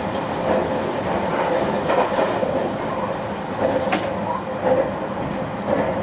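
Running noise inside a JR West 287-series electric limited express car: a steady rumble with an even hum, broken by scattered clicks and knocks from the wheels on the track.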